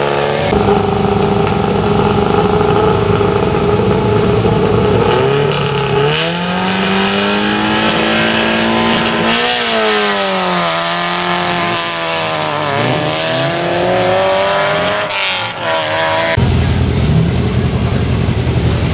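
Rally car engines revving hard as cars pull away from the start, pitch climbing and dropping repeatedly with each gear change. About sixteen seconds in, a loud low rumble of a car idling close by takes over.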